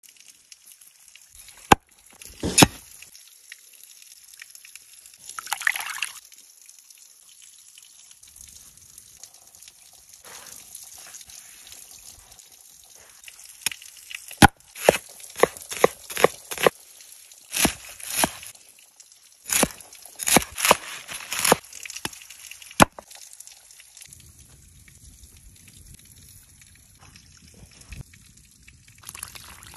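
Sharp knocks of a knife cutting on a wooden cutting board, a few early on and then in quick runs for several seconds through the middle, over a faint trickle of running water.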